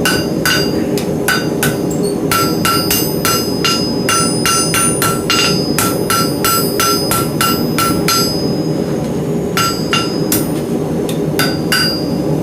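Hand hammer striking hot steel on an anvil at about three blows a second, each blow ringing, while bending the end of a forged beam hook to a right angle. The hammering stops for about a second and a half near the end, then resumes. Under it runs the steady roar of the forge.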